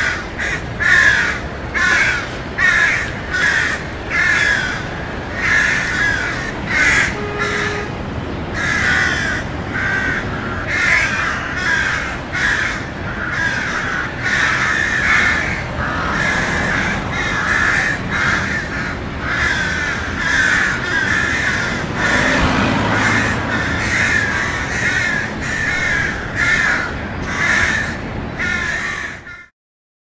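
A flock of crows cawing over and over, many harsh calls following close on one another and overlapping, over a low, steady background of city ambience. The sound cuts off suddenly near the end.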